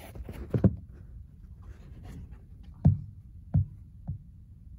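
Handling noise from a phone camera being moved about inside a car: fabric rubbing and about four soft knocks over a low, steady rumble.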